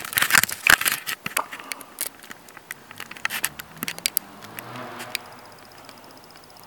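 Sharp, irregular clicks and crackles, dense in the first second and a half and thinning out after. From about five seconds in, a faint, steady, high pulsing chirp of crickets.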